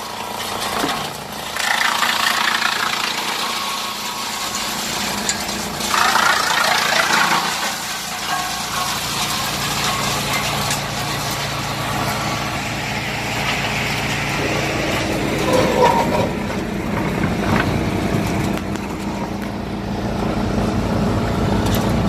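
BSR-HX400C industrial wood chipper line and a wheel loader's diesel engine running together, a steady machinery din with louder surges about 2 and 6 seconds in. A deeper steady engine drone builds in the second half.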